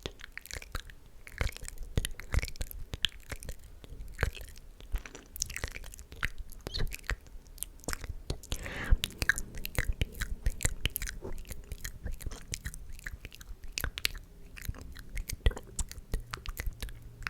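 Close-miked ASMR mouth sounds: a dense, irregular run of wet tongue and lip clicks and smacks, with a breathy whisper about halfway through.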